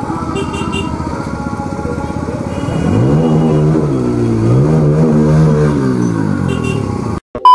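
Motorcycle engine running at low speed, its revs rising and falling twice from about three seconds in as the throttle is opened and closed. The sound cuts off suddenly near the end.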